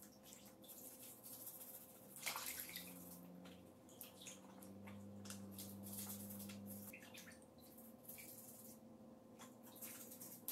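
A small brush scrubbing swimming crabs' shells in a basin of water: faint, short scratchy strokes with small splashes and drips. A faint low hum runs for a few seconds in the middle.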